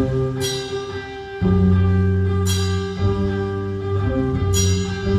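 Rock band playing live: sustained chords with guitar, and a sharp accented hit about every two seconds, three times.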